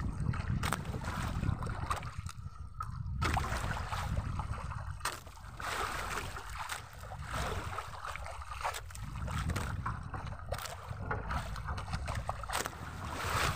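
Wind buffeting the microphone over water sloshing against a small boat's hull, with a few sharp knocks scattered through.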